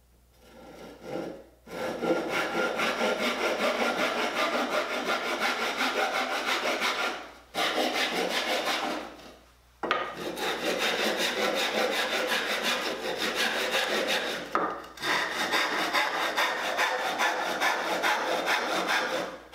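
Hand saw cutting through a wooden board in fast, even strokes. It starts with a few light strokes, and the sawing breaks off briefly about seven seconds in and again near fifteen seconds.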